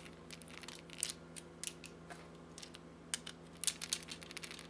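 Small screwdriver working out the screws that hold the little motor in a PS3 Blu-ray drive: faint, irregular ticks and clicks of the tool and screws, over a steady low hum.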